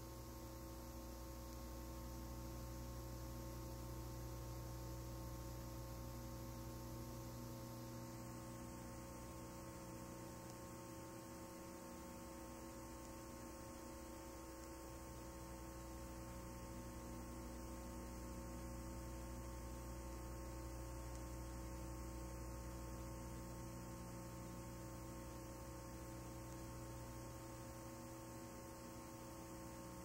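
Faint, steady electrical mains hum with a layer of hiss.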